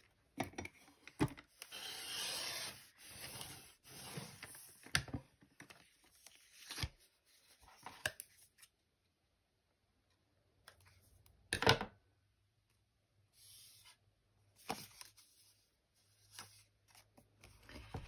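A Kaisercraft sliding paper trimmer cutting a magazine page, with a scraping cut of about two seconds, then paper rustling and several sharp clicks as the trimmer and the cut pieces are handled.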